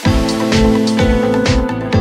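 Background music with a steady drum beat and held notes, kicking in suddenly at the start.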